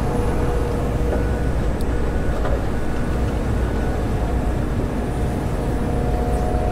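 John Deere 345 excavator's diesel engine running steadily under digging load, heard from inside the cab, with a faint steady whine riding over the low drone.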